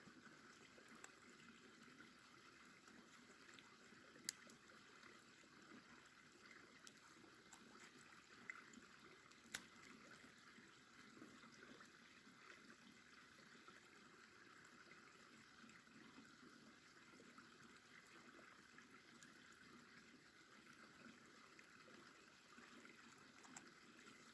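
Near silence: a small tinder fire of pitchy wood shavings and dry needles just catching, a faint steady hiss with a couple of sharp pops.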